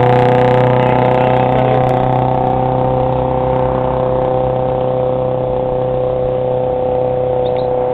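A loud, steady drone at one fixed pitch that neither rises nor falls, like a motor running at constant speed.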